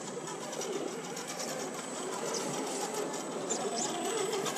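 Small electric motor and gear drive of a radio-controlled scale rock crawler running steadily with a fine, fast whirring as the truck climbs over rock.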